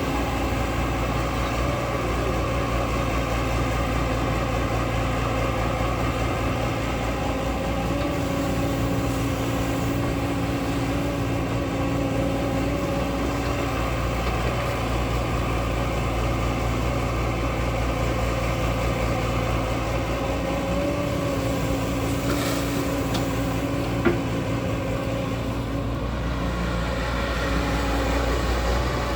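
Hyundai R140L SMART Plus hydraulic excavator's diesel engine running steadily under working load, with a hydraulic whine that comes and goes as the boom and bucket move. A single sharp knock near the end.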